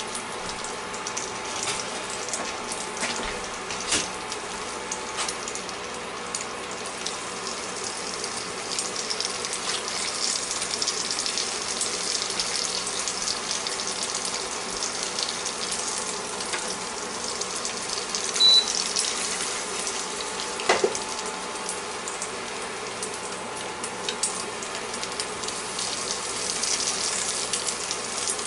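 Egg frying in butter in a Copper Chef square pan on an induction cooktop: a steady sizzle with scattered crackles and a couple of louder pops in the second half.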